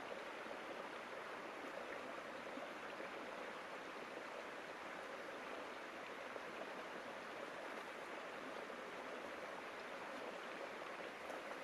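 River water flowing: a steady, even rushing with no change.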